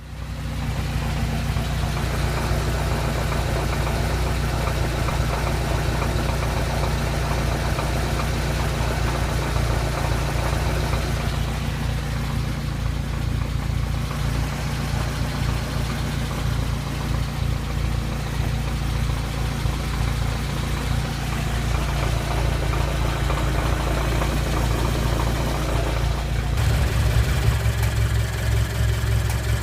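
Subaru BRZ's flat-four boxer engine idling after a cold start, with a light 'karakoro karakoro' rattle that goes quiet when the clutch is pressed in neutral and fades as the engine warms. The tone of the idle changes about 26 seconds in.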